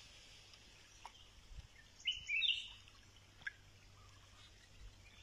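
A short, high animal call about two seconds in that steps up in pitch over about half a second, heard over faint outdoor background with a few small ticks.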